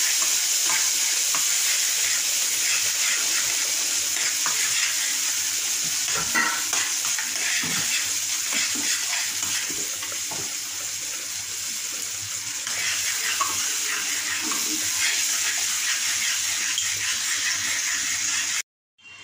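Red chilli sauce sizzling in a steel frying pan while a metal spatula stirs and scrapes it around the pan, a steady hiss that cuts off abruptly near the end.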